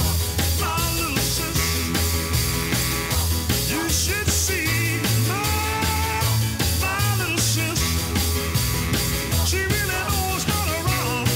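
Rock song with a sung vocal over bass guitar and a steady drum beat.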